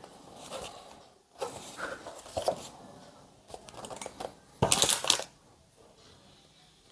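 Cardboard keyboard box and its packaging being handled and opened: scattered soft rustles and scrapes, with one louder rustle about four and a half seconds in.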